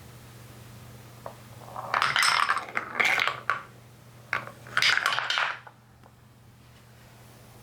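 Balls rolling and clattering through a plastic Trix Track marble run, in two bursts of rapid rattling clicks.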